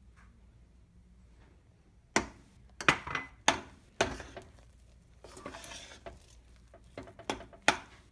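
A mixing utensil knocks and scrapes against a stainless steel pot while stirring flour into mashed potatoes. After about two seconds of quiet comes a run of sharp clinks, then a stretch of scraping, then a few more clinks near the end.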